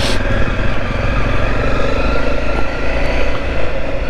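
Motorcycle engine running at steady revs while riding.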